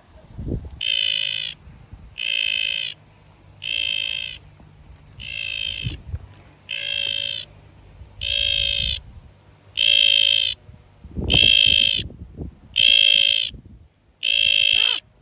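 A weird, repeated animal-like call from inside a felled River Redgum log: even calls about two-thirds of a second long, coming roughly every second and a half, from an unidentified creature in the log. A couple of low thuds come through as well, one of them about eleven seconds in.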